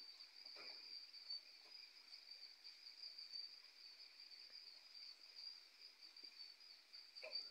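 Faint, steady high-pitched drone of insects calling from the riverbank vegetation, with a weaker lower band beneath it.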